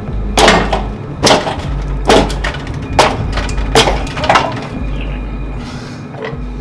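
A blue trolley (floor) jack being worked by its long handle, giving about six sharp clacks roughly one a second, then a fainter one near the end.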